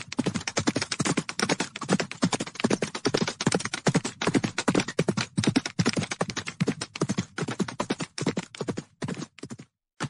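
Hoofbeats of a large herd of horses galloping: a dense, irregular clatter of many hoof strikes, cutting out briefly near the end.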